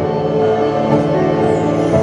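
Live worship music from a church choir and grand piano, with sustained notes held without a break.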